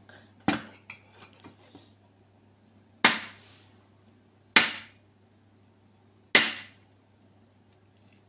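Eggs cracked against the hard rim of a bowl: four sharp knocks, with a few faint clicks of shell after the first.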